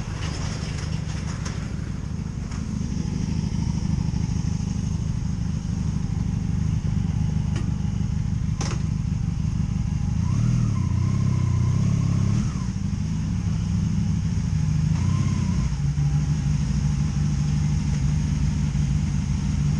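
Honda Magna VF750C's V4 engine running at low speed, with a short rise in revs about halfway through before settling back.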